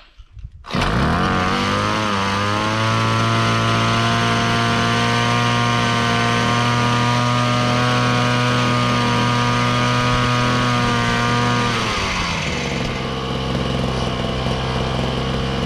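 Small engine of a Koshin EP-10P engine power sprayer starting up about a second in and revving up to a steady high speed. About twelve seconds in it drops to a lower speed and keeps running.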